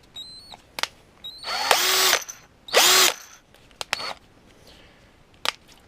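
Parkside PBSA 12 D4 12 V cordless drill running unloaded in two short bursts about a second apart, each whining up in pitch as the chuck spins up and then holding steady before stopping. A few sharp clicks come between and after the bursts.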